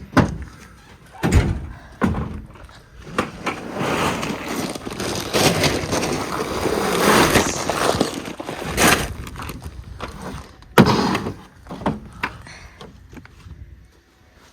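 Apples being picked and dropped into buckets: irregular thumps and knocks, several seconds apart, with a few seconds of rustling in the middle.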